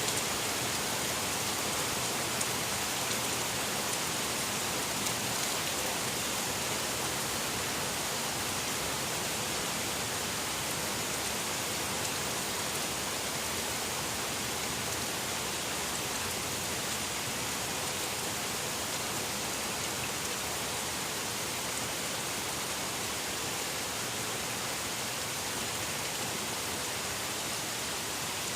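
Steady rain falling, an even hiss of drops with occasional faint individual drop ticks.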